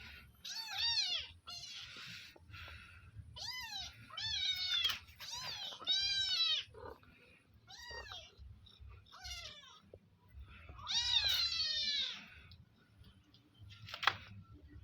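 Domestic cats meowing repeatedly, about nine separate rising-and-falling calls, some overlapping as if from more than one cat, begging for more food. A sharp click near the end.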